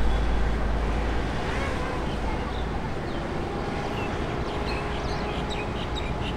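Distant jet-engine roar of a Boeing 777-300ER's GE90 engines on its landing rollout, a deep rumble easing off a little over a second in and the noise then settling to a steady, lower level.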